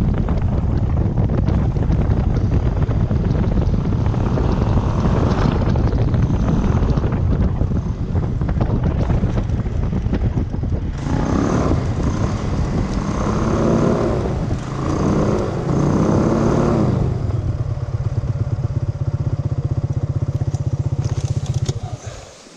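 Small aircraft engine running through the landing with heavy wind noise, its note rising and falling in the middle as it rolls out on the ice. It then settles to a steady idle and is shut off abruptly near the end.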